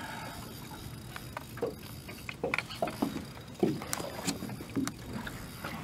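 Water lapping and small splashes against the side of a boat hull, with a few light, irregular knocks.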